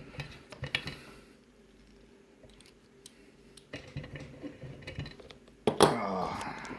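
Light metallic clicks and rattles of lock-picking tools working in a padlock cylinder, in scattered bursts. Near the end a short, louder vocal sound that falls in pitch, like a groan.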